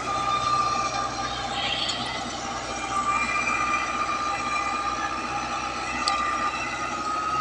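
Tractor running steadily under load while driving a rotavator through ploughed soil: a low engine drone with a steady high whine over it.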